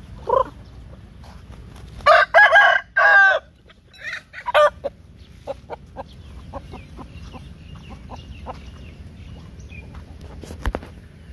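A rooster crows once, about two seconds in, a loud crow of about a second and a half broken into several parts. Short calls come just before and after it, then soft scattered clucking from the flock.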